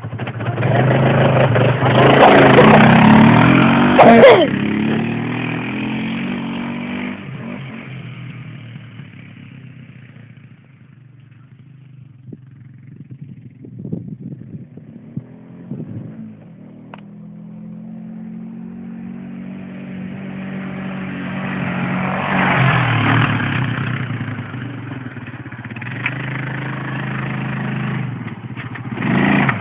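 Arctic Cat 500 ATV engine revving hard as it pulls away, with a sharp knock about four seconds in. It then fades into the distance and grows louder again as the quad rides back.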